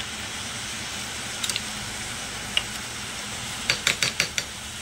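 Chicken and vegetables sizzling steadily in an aluminium pot over a gas flame, with a single sharp click partway through and a quick run of clicks and taps near the end.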